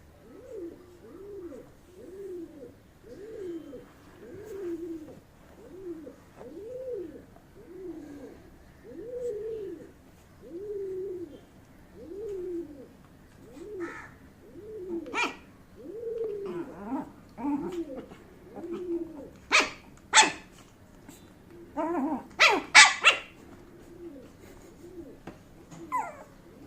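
Shih Tzu puppy barking in sharp yaps: a few spaced ones past the middle, then a quick cluster of the loudest near the end. Under them, soft low rising-and-falling calls repeat about once a second.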